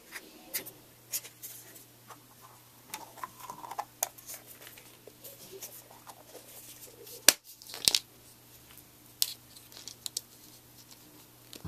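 Hands handling an LOL Surprise doll's pink plastic ball and its small plastic pieces: scattered clicks and taps with light crinkling and rustling. The two sharpest clicks come about seven and eight seconds in.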